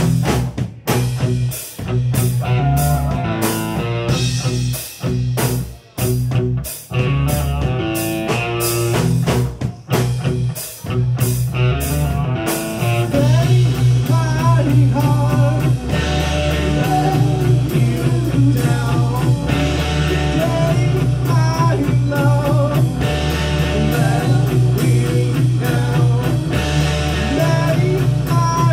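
Live prog-metal band playing electric guitars, bass and drums. For about the first twelve seconds they play stop-start staccato hits with short silent gaps between them. Then the band settles into a steady full groove with sung vocals over it.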